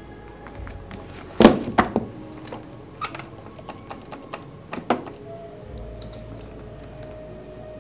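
Corded desk telephone being handled: a thump about a second and a half in, then scattered clicks and taps as the handset is lifted and its keypad buttons are pressed.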